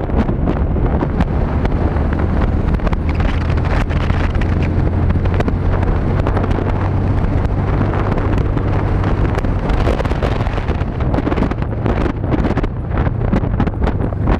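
Motorcycle engine running steadily while riding, under heavy wind buffeting on the microphone. The wind noise turns crackly and gusty in the last few seconds.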